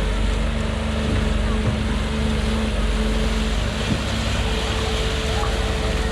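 Excavator engine running steadily, a constant low drone with a fine rhythmic throb and a couple of held tones above it.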